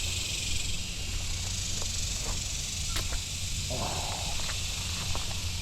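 Steady high drone of cicadas, with a few light clicks and a brief rustle about four seconds in.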